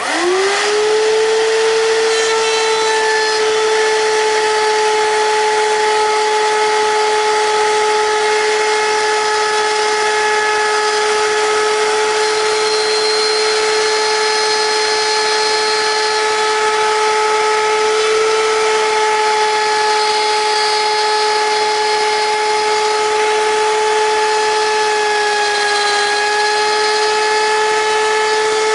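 Router motor on a router table switched on, spinning up with a quickly rising whine in the first second, then running steadily at full speed with a high, even whine.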